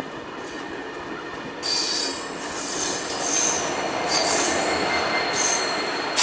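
Train's steel wheels squealing on the rails over the rolling rumble of the train. The high-pitched squeal sets in just under two seconds in and rises and falls in pitch and strength. A sharp knock comes at the very end.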